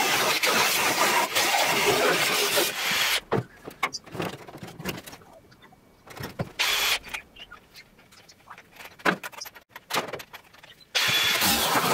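Angle grinder cutting the rusted steel of a 1957 VW Beetle's rear wheel arch. It runs for about three seconds, gives one short burst midway, and starts cutting again near the end; between the cuts there are scattered knocks and clatter of metal.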